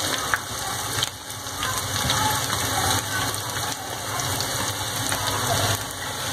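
Freshly added chopped onions sizzling steadily in hot oil in a kadhai.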